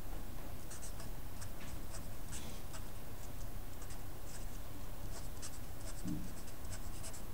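Felt-tip marker writing on paper: short, irregular scratchy strokes as letters are drawn, over a low steady hum.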